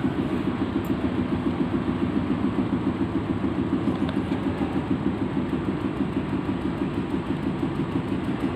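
A steady low mechanical hum that pulses evenly, about four to five beats a second.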